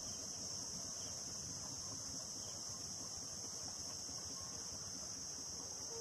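Insect chorus from the trees: a steady, unbroken high-pitched drone.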